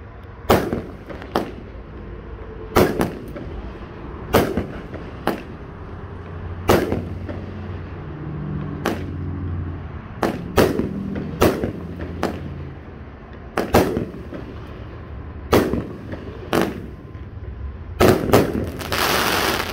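Pyro Diablo "Fast and Furious" 16-shot fireworks cake firing, a series of sharp bangs at uneven spacing, mostly a second or so apart. Near the end comes a loud burst with about a second of hiss.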